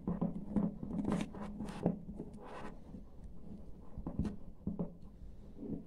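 Yellow plastic screw lid being twisted onto a glass jar by hand: an irregular run of short scratchy scrapes and clicks as the lid rubs and turns on the jar's rim.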